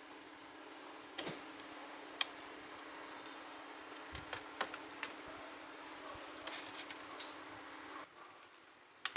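Scattered light clicks and taps of small tools and parts on a laptop being repaired, over a steady low hum that cuts off about eight seconds in.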